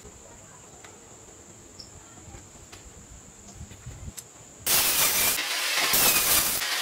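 An angle grinder starts suddenly about two-thirds of the way in, cutting into a small stainless-steel fitting with a loud, even grinding. Before that there are only a few faint ticks of the metal part being handled, under a faint steady high whine.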